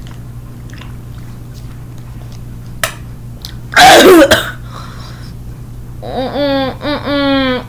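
A young person coughs once, loud and harsh, about four seconds in, reacting to a very sour drink. From about six seconds in come drawn-out strained vocal groans whose pitch bends and falls.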